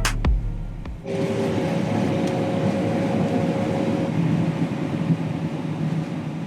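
Music with a few sharp hits ends about a second in, giving way to a combine running steadily while harvesting soybeans: an even machine noise with a low hum and a faint steady tone.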